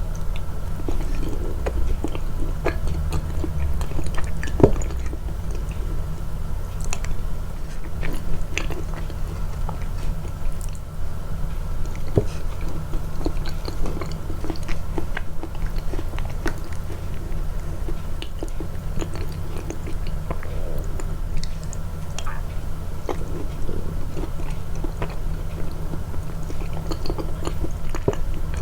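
Close-miked chewing and biting of food, emphasised in the edit: irregular small crackles and clicks from the mouth, over a steady low hum.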